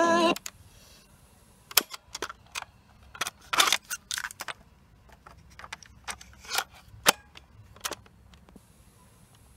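Sanyo Little Mini radio-cassette player being handled: tape music cuts off right at the start, then a string of sharp plastic clicks and clacks from the keys and the cassette door as a cassette is ejected, swapped for another and the play key pressed, busiest about three to four seconds in.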